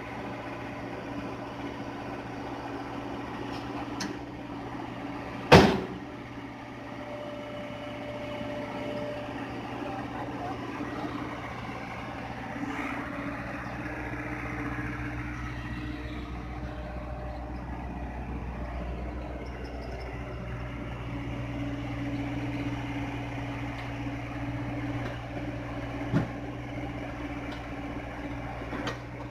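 Hyundai excavator's diesel engine running steadily. A single loud, sharp knock comes about five and a half seconds in, and a few fainter knocks come near the end.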